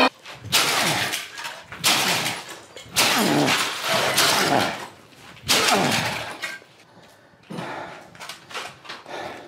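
Repeated heavy blows with a metal bar smashing a plastic-and-metal electronic appliance, with plastic and glass breaking and debris clattering. About five hard hits come in the first six seconds, then lighter knocks and rattling.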